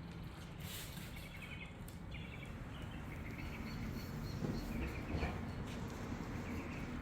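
Outdoor ambience: small birds chirping intermittently over a steady low background rumble.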